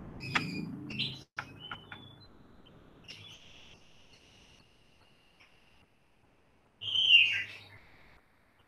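Bird chirping: a quick run of short high chirps in the first two seconds, a held high whistled note a few seconds in, and one louder call sliding downward about seven seconds in.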